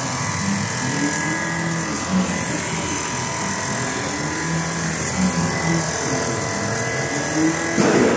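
Richpeace rotating-head automatic sewing machine running as it stitches heavy winter-jacket fabric: a steady mechanical hum and hiss, with low tones that rise and fall in pitch. A sharp click sounds near the end.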